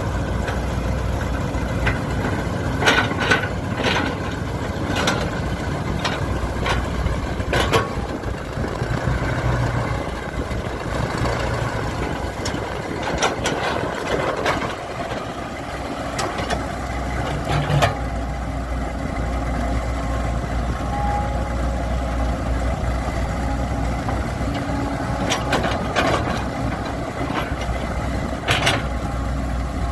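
Engine of earth-moving machinery running steadily, with repeated sharp metallic clanks and knocks, several in quick succession at a time.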